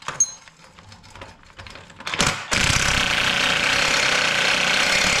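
A few light clinks of a socket going onto the bolt, then about two and a half seconds in an impact wrench starts and runs steadily at full speed. It is spinning the 18 mm lower camber-arm bolt of a rusty BMW E36 rear subframe.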